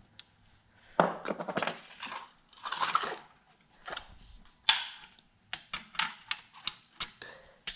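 Metal parts and a hand tool clicking and scraping against a tractor transmission case at the countershaft end: a few rustling scrapes in the first half, then a quick run of sharp clicks near the end.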